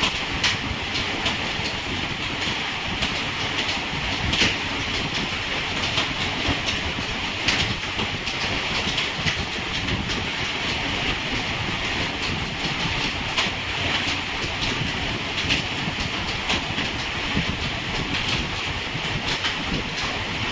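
Continuous fast typing on a computer keyboard: a steady stream of keystroke clicks.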